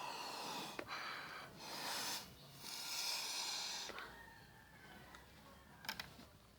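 Slime being squeezed and stretched by hand: two long hissing squelches of trapped air, then a few sharp pops near the end.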